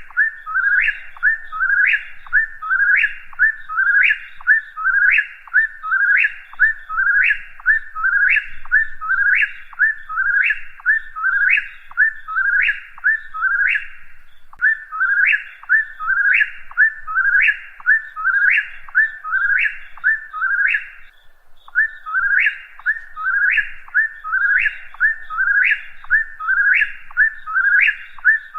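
Whip-poor-will singing its whistled "whip-poor-will" song over and over, about once a second, each phrase ending in a sharp rising note. There is one brief break in the calling about two-thirds of the way through.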